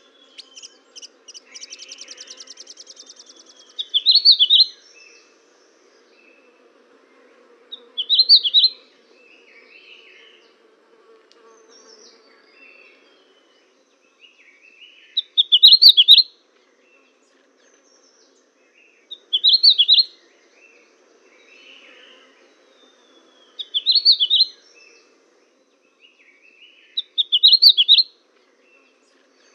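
Small songbirds chirping. Six loud bursts of quick chirps come a few seconds apart, with softer calls between them and a fast, buzzy trill near the start.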